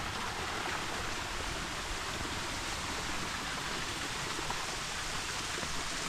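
Steady rushing of running water, an even hiss that holds at one level throughout.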